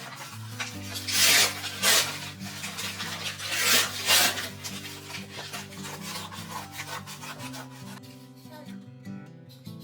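Four loud rubbing, scraping strokes, two about a second in and two more near four seconds, over light background music.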